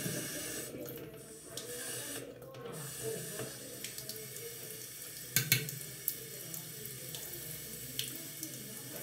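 Water tap running steadily into a bathroom sink, with a sharp knock about five seconds in and a smaller click near the end.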